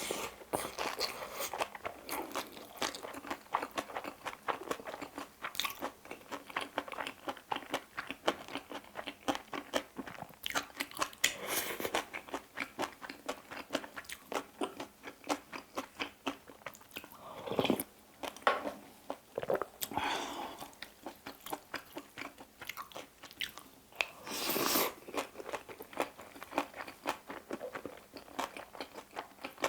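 Close-up chewing of a mouthful of bibimbap with crunchy seasoned vegetables: steady, irregular crunching and wet mouth clicks, with a few longer, louder mouth noises along the way.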